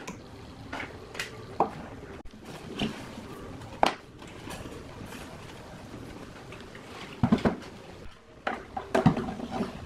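Handling sounds of an old wooden speaker cabinet being taken apart: scattered clicks and knocks as wires are snipped with pliers and the box shell is lifted off the baffle and set aside, with a few louder knocks near the end.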